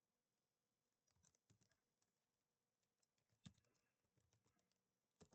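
Near silence broken by a few faint keystrokes on a computer keyboard: a small cluster about a second in, a sharper single click midway and another near the end.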